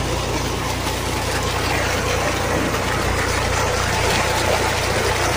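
Tube well pouring a heavy stream of water from its outlet pipe into a concrete tank, a steady rushing splash over the low, even hum of the pump's motor.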